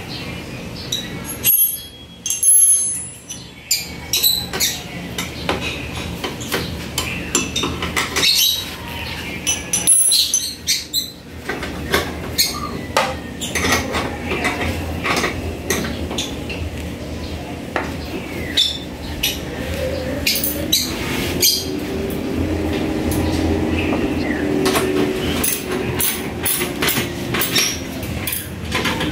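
Irregular metallic clicks and clinks of hand tools working the bolt at a motorcycle rear shock's upper mount, coming more often in the second half.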